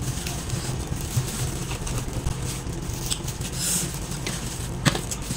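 Soft handling sounds as a plastic-gloved hand picks flesh off a cooked fish and herbs on a metal tray: light rustling and small clicks over a steady low hum, with one sharp tap near the end.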